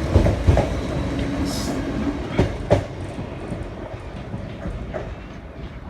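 LNER Azuma train running past, its wheels clicking over the rail joints in pairs under a steady rumble, with a brief high squeal about a second and a half in. The sound fades as the train draws away.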